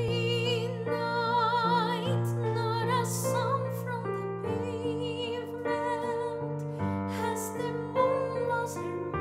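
Woman singing a slow ballad in a full, operatic voice with wide vibrato over a sustained piano accompaniment.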